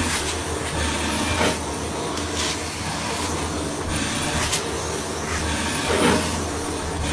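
Steady low rumble and hiss, with a few brief knocks.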